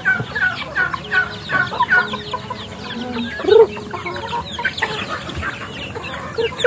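A flock of chickens clucking and young chicks peeping, many short high chirps overlapping, with one louder, lower call about three and a half seconds in.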